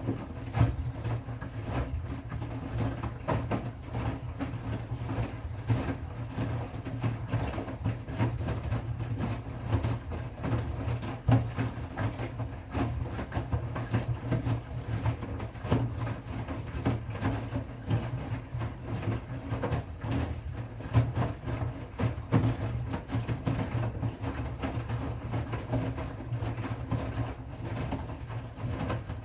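Front-loading washing machine in its wash phase: the drum turns with a steady low motor hum while wet laundry tumbles and water sloshes, with irregular soft thuds and splashes.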